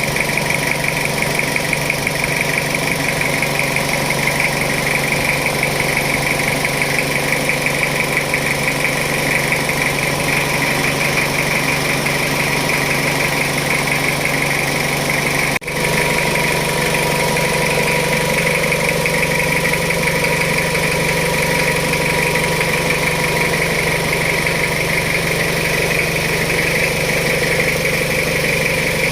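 Jeep Wrangler engine idling steadily, with a brief break in the sound about halfway through.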